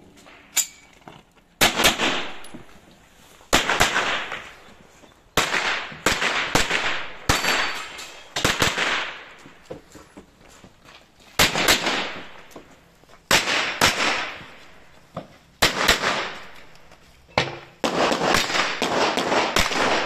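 Pistol-caliber carbine shots, fired in quick pairs and short strings with pauses between them, each crack trailed by a ringing echo; a dense, rapid run of shots comes near the end.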